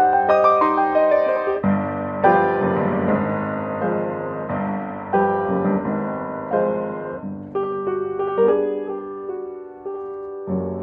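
Solo piano playing a silent-film accompaniment score, a string of struck notes and chords.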